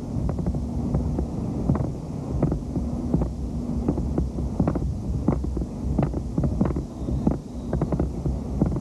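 Low rumble of wind on a camcorder microphone with a faint steady hum, broken by many irregular sharp knocks.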